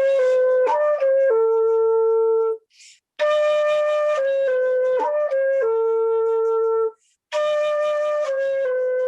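Solo flute playing a slow melody in phrases of held notes that step downward, with short breaks between phrases about two and a half and seven seconds in.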